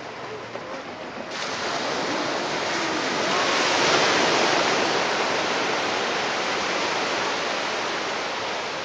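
Surf on a beach: a wave breaks and washes up the sand as a hiss that swells from about a second in, peaks about four seconds in, then slowly fades.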